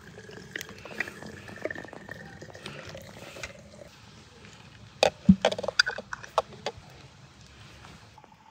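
Glass bottles of strawberry compote clinking and knocking against each other as they are set side by side in a blanket-lined basket. A few light clinks come in the first half, then a quick run of sharper knocks about five seconds in.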